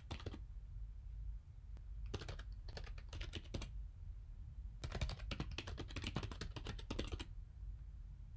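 Computer keyboard typing in three runs of rapid keystrokes: a short run at the start, another about two seconds in, and a longer one about five seconds in, over a low steady hum.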